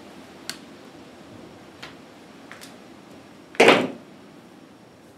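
Hands handling a small coax adapter and a hand tool: a few light clicks, then a louder, longer clatter about three and a half seconds in.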